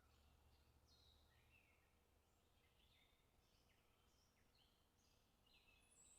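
Faint birdsong: several birds giving short, quick chirps and whistled notes that overlap throughout. A faint low hum sits under them for the first second and a half.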